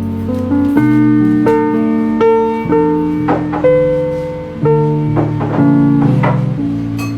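Background music: a gentle instrumental with piano-like keyboard chords and plucked notes, at a slow, even pace.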